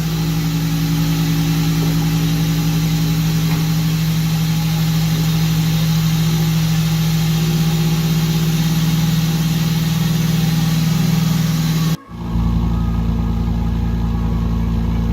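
Acura CL's J32A2 3.2-litre V6, fitted with a J35Z6 intake manifold, idling steadily just after starting and running well now that the correct throttle body gasket lets the idle air control valve regulate the idle. The sound breaks off briefly about twelve seconds in, then a steady running sound with a heavier low end continues.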